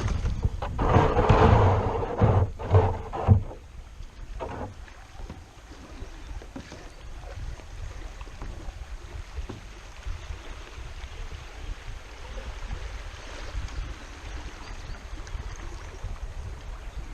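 Kayak on a moving river: water rushing and wind buffeting the microphone, with a louder, rougher stretch of rumble and knocks for the first three seconds or so before it settles to a steady low rush.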